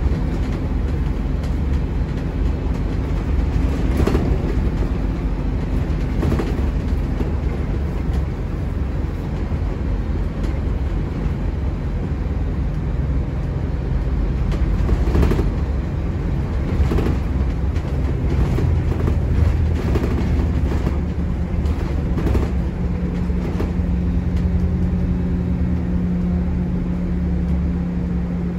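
Scania N270UD OmniCity double-decker bus heard from its upper deck on the move: a steady diesel engine and road rumble, with scattered knocks and rattles from the body and fittings. A steady hum joins in about three-quarters of the way through.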